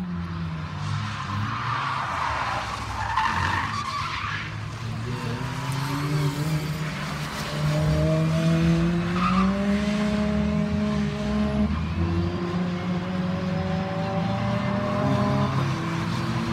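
Several Fun Cup race cars taking a tight corner, their engines overlapping and rising and falling in pitch as they brake and accelerate out. Tyres squeal through the corner for the first few seconds.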